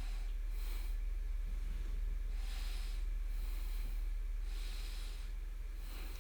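A person breathing close to the microphone, four soft hissy breaths about two seconds apart, over a steady low hum.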